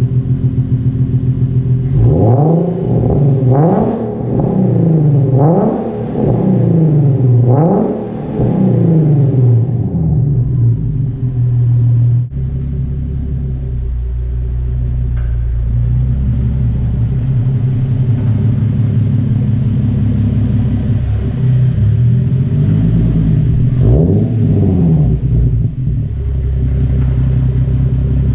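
Nissan 370Z Nismo's 3.7-litre V6 through an AAM Resonated Short Tails axle-back exhaust, warmed up: blipped in about four quick revs in the first ten seconds. It then idles steadily with a deep tone, with one more rev near the end.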